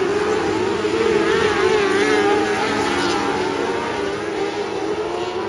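A pack of 600cc micro sprint cars racing together, their motorcycle-derived engines running at high revs, several pitches overlapping and rising and falling as the cars go through the turn.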